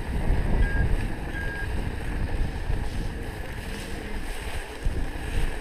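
Wind buffeting the microphone, a low rumble that rises and falls, with two short high tones about a second in.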